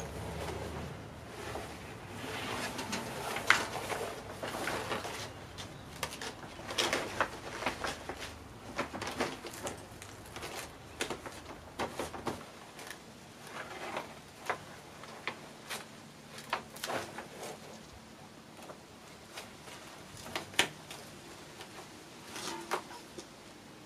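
Crackling and crinkling of a large plastic sheet being unfolded, handled and pressed flat, in irregular clicks and rustles. A low background hum stops about halfway through.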